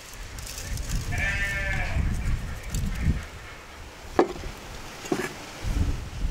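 A farm animal bleats once, for under a second, about a second in, over a low rumble. Two sharp clicks follow later.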